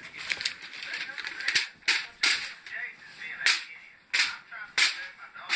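Paper being handled and rustled close to the microphone: a run of sharp crackling snaps at uneven intervals, about seven loud ones spread through.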